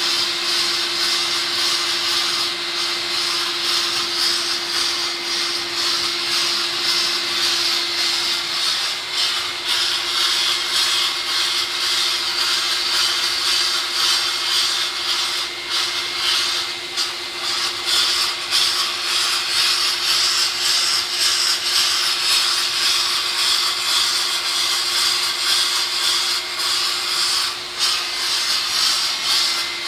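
Manual sandblasting table's blasting head working over a lettered slab: a steady, loud hiss of air and abrasive, with a steady low hum underneath from the machine.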